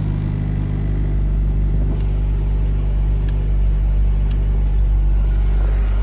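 Acura Integra engine idling steadily, with two faint clicks in the middle.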